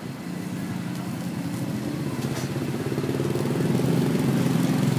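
Small motorcycle engine running, growing steadily louder as it comes closer.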